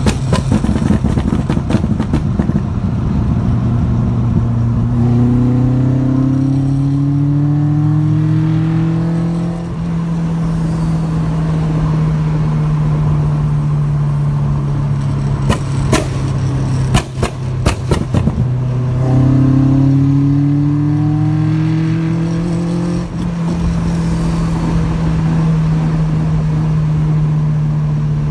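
Toyota 4A-GE 20-valve four-cylinder engine held at raised revs, its pitch climbing slowly twice. Clusters of sharp exhaust pops and bangs come at the start, about halfway through and again later.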